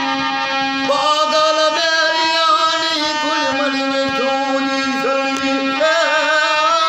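Music: a steady drone with a wavering melody over it, the melody coming in about a second in.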